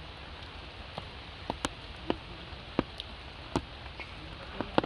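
Water dripping after rain: scattered irregular drops ticking onto wet surfaces over a steady hiss of wet surroundings.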